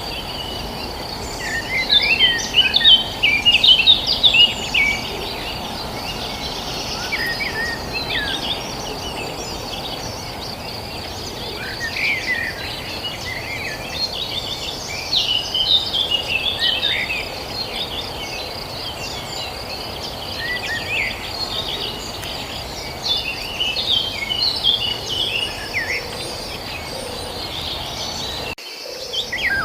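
Many small birds chirping and calling in quick short notes, in clusters that come and go, over a steady high insect trill and a constant background hiss. The sound cuts out briefly near the end.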